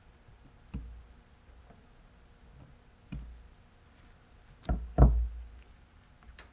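Four dull knocks of something hard being struck, spaced a couple of seconds apart; the loudest two come close together about five seconds in.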